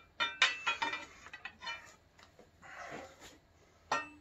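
Metal clanks and clinks of a breaker bar and socket on the crank bolt of a small-block Chevy as the crankshaft is forced round by hand, turning stiffly. A burst of ringing clinks comes just after the start, then a few scrapes, and a single sharp clack near the end.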